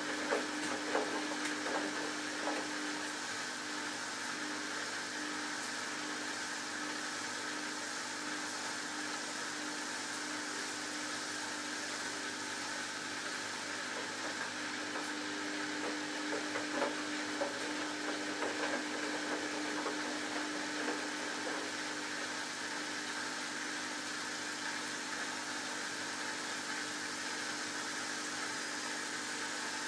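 Samsung Ecobubble WF1804WPU front-loading washing machine running its drum with a steady motor hum and hiss, laundry sloshing in the water with scattered splashes near the start and around the middle. By the end the laundry is pinned to the drum wall as the prewash spin begins.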